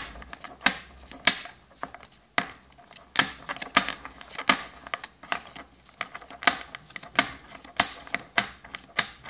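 Battle Spirits trading cards being flipped through one by one in the hands, each card snapping against the stack as it is moved, about twice a second, with soft sliding between.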